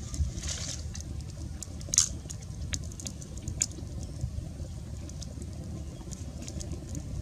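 Small wood fire of twigs crackling and popping, with the sharpest pop about two seconds in and a short hiss near the start, over a steady low rumble.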